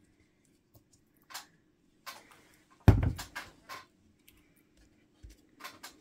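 Hand-handling of a cordless hot glue gun and card parts on a craft table: scattered light clicks and taps, with a louder knock about three seconds in, over a faint steady hum.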